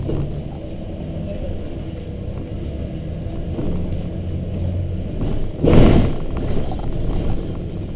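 Volvo B7RLE bus's rear-mounted six-cylinder diesel running as the bus drives, heard from inside the cabin as a steady low hum. A short, loud burst of noise comes about six seconds in.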